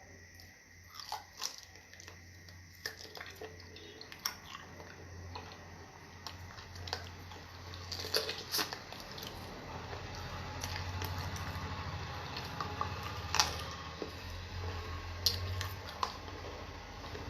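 Close-up chewing and mouth sounds of someone eating fufu and stew, with scattered wet smacks and clicks.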